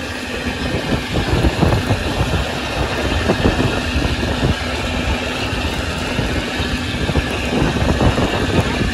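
Fishing trawler's engine running steadily: a low rumble with a constant hum over it.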